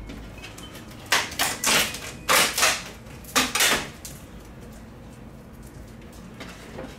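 A quick run of short scraping and clattering noises from hands working on the TV's LED backlight strips on the sheet-metal back panel, about seven in the space of three seconds, then only a low background.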